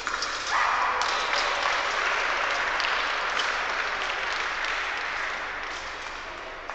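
Audience applauding, starting suddenly about half a second in and slowly dying away near the end.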